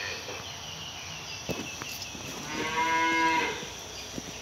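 Dairy cattle mooing: a single call about a second long, a little past halfway through.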